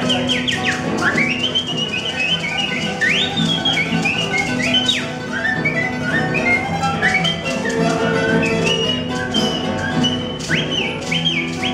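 A small acoustic trio playing without singing: two guitars strumming chords with maracas shaking. High whistle-like notes slide up and down above the music.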